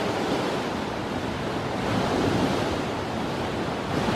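Wind rushing over the camera microphone, a steady noise that rises and falls slightly, outdoors in the open.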